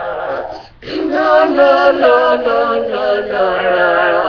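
A voice singing in drawn-out, wavering notes, breaking off briefly under a second in and then carrying on.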